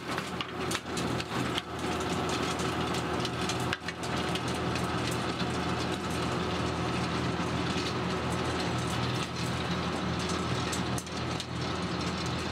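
John Deere 1025R compact tractor's three-cylinder diesel engine running steadily, driving a PTO rotary tiller, with scattered short clicks over the drone.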